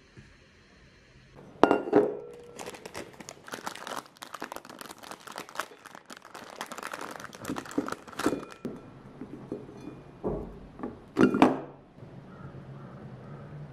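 Things being handled in a small room: crinkling and rustling with short knocks and clinks, loudest about two seconds in and again near the end.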